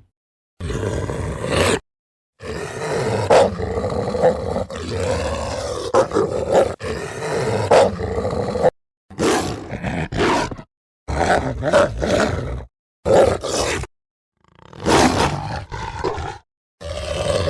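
Film werewolf sound effects: a string of creature roars and growls played one after another, each cut off abruptly into silence. A short call is followed by a long one of about six seconds, then five shorter ones.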